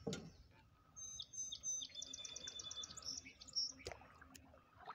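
A songbird singing: a few clear high notes, then a fast, even trill of about ten notes a second and a short warble. Two knocks come near the start and about four seconds in.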